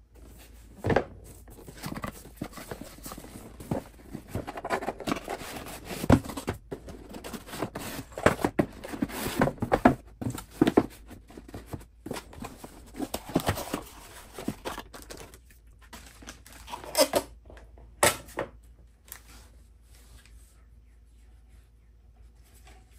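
Cardboard boxes and plastic packaging being opened and handled on a wooden table: irregular rustles, scrapes and knocks, busiest in the middle, thinning out to quiet handling in the last few seconds.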